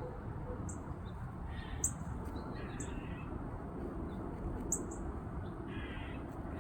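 Three short, harsh bird calls spaced a second or more apart, over a steady low outdoor background.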